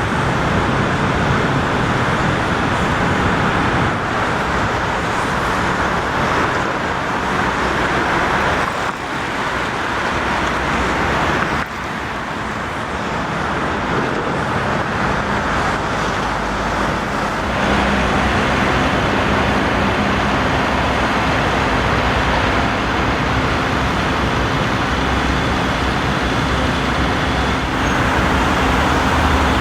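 Steady roar of road traffic and vehicle engines, with brief dips about nine and twelve seconds in; from about eighteen seconds a steady low engine hum joins in.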